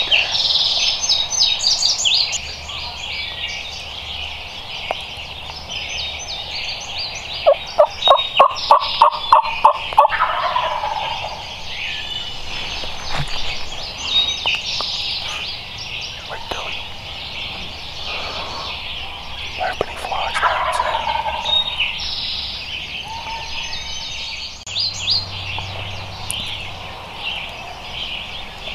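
Wild turkey gobbling, with a loud run of about nine evenly spaced calls between about seven and ten seconds in, over steady birdsong.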